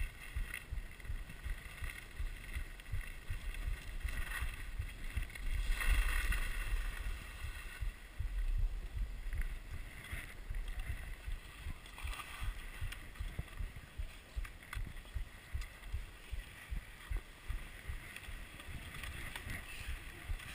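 Skis sliding over packed snow, with wind buffeting the microphone in uneven low gusts. The hiss of the skis swells several times and is loudest about six seconds in.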